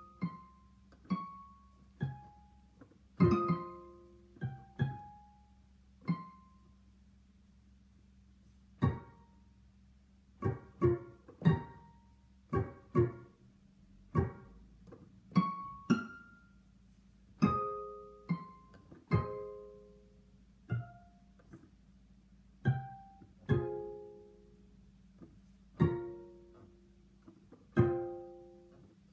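Background music of slow, sparse plucked-string notes, each ringing out and fading, with a pause of a few seconds partway through.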